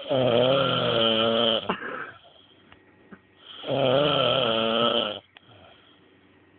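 A drunk man snoring loudly in his sleep: two long snores, each with a wavering pitch, about three and a half seconds apart.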